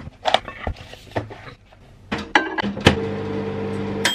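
Food knocked out of a plastic container into a ceramic bowl, a few short clatters, then a microwave oven running with a steady hum. A high beep starts right at the end as it finishes.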